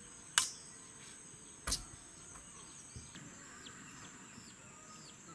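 Two sharp strikes of a machete chopping into a green coconut, about half a second and a second and a half in, the first with a short metallic ring. A steady high insect drone runs underneath, with short high chirps in the second half.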